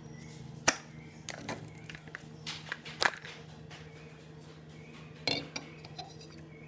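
Aluminium drink can, wet from ice water, knocking and clinking against its plastic container and the tabletop as it is lifted out and handled: a scattering of short, sharp taps over a steady low hum.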